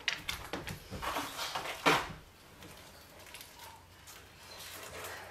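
Rustling and clicks as a large dog climbs up onto a cloth-covered sofa, with a sharp knock about two seconds in, then quieter shuffling as it settles.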